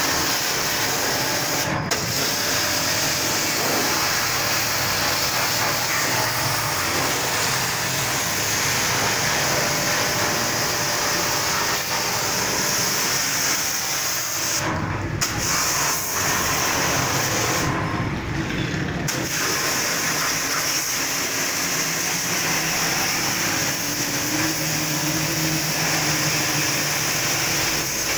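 High-pressure water jet from a small plunger-pump pressure washer spraying a motorcycle's engine and exhaust: a steady hiss of spray over the hum of the running pump. The hiss thins briefly a few times, for about a second near the two-thirds mark.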